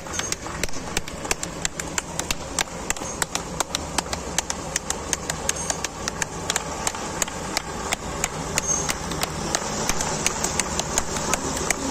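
Old trucks' engines running at a slow crawl, under a steady stream of sharp, uneven ticks and taps, several a second.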